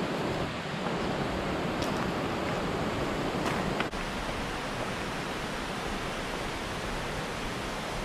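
Mountain stream water rushing: a steady, even hiss of flowing water, with a brief dip a little before four seconds in.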